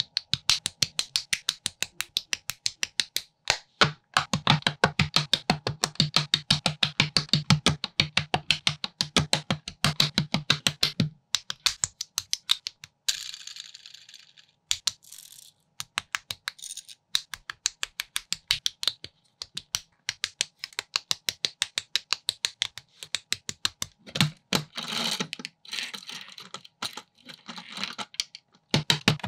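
Plastic building bricks clicking and snapping together in a fast, even rhythm of about five clicks a second, as in a sped-up brick build. It is broken twice by a few seconds of scratchy noise.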